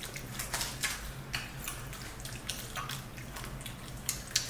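Mouth sounds of people chewing crispy fried chicken wings: irregular crunches and clicks, about three a second, over a faint steady low hum.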